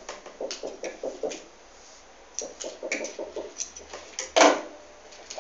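Light, irregular knocks and clicks from handling cloth and objects on a wooden work table beside a sewing machine, with one louder knock about four and a half seconds in.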